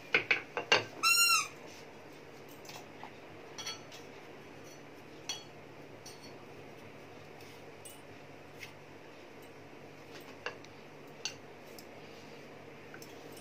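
Light, scattered taps and knocks as a wooden rolling pin, a marble rolling board and a steel flour tin are handled while roti dough is rolled, over a steady low hum. About a second in there are a few sharper knocks, followed by one brief high-pitched squeal.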